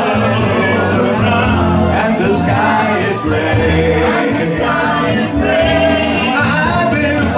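Several men singing together into microphones over a continuous musical backing with a steady bass line.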